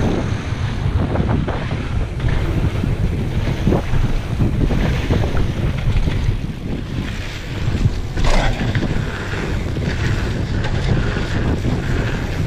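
Wind buffeting a mountain bike rider's action-camera microphone on a fast descent, with the tyres rolling over a dirt and gravel trail and the bike knocking and rattling over bumps.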